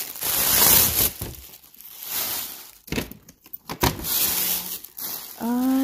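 Tissue paper rustling and crinkling as it is pulled out of a paper gift bag, loudest over the first second and a half, then in shorter handfuls with a couple of sharp crackles.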